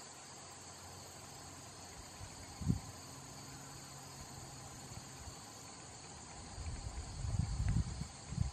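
A steady, unbroken high trilling of insects in the grass. There is a single low thump about three seconds in and low rumbling near the end.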